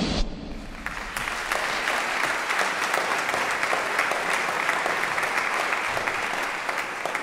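Audience applauding: dense, steady clapping that builds up over the first second.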